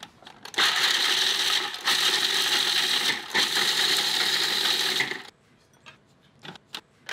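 Food processor running, grinding toasted pecans very fine, in three bursts with short breaks about two and three seconds in, then stopping about five seconds in. A few small handling clicks before and after.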